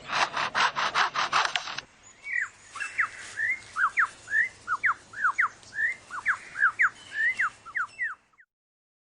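Superb lyrebird mimicking a chainsaw as a harsh, rhythmic rasping of about six strokes a second. After about two seconds it switches to a quick run of short, sharp whistled notes sweeping up and down, which stop a little after eight seconds.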